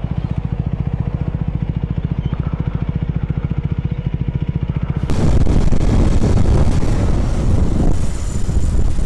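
Motorcycle engine idling with a rapid, even exhaust pulse. About five seconds in it cuts abruptly to a louder rush of wind noise over a motorcycle riding through traffic.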